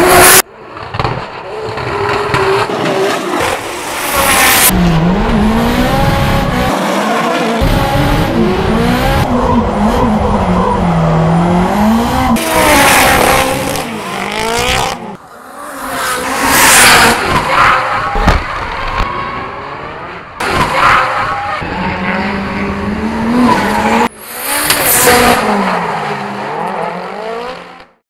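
Drift cars sliding under power: engines at high revs rising and falling in pitch as the throttle is worked, over loud tyre squeal. There are several passes, with abrupt cuts between them.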